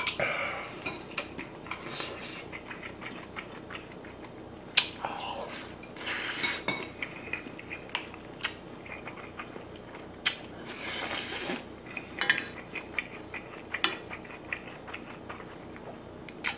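Eating sounds from a pot of kimchi stew: a wooden spoon clinking and knocking against the pot and bowl a few times, between short bursts of slurping and chewing.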